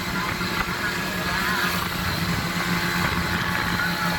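Ski-Doo snowmobile running at a steady trail speed, heard from the rider's seat; its engine note holds even with no revving or changes.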